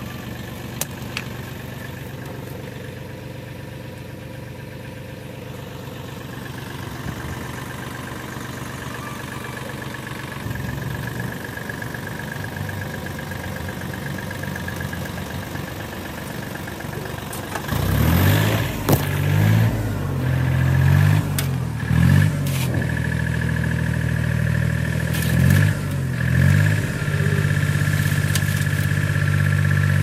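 Tractor diesel engine idling steadily, then revved up hard from a little past halfway, rising and falling several times before holding at high revs, which drives the hydraulic tipper that raises the trolley to dump its gravel. A few sharp knocks near the start: a stone struck against the trolley's tailgate latch.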